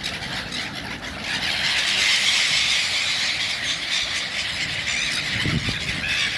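A flock of many birds calling and chattering together at feeding time: a dense, continuous chorus of high chirps that grows louder about a second in. A short low rumble comes near the end.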